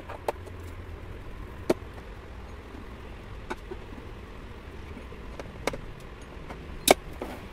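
A few sharp, separate taps of a hammer on a pointed awl, unevenly spaced, the loudest near the middle and near the end, punching pilot holes for screws through the mounting holes of a plastic drawer box into a wooden table top.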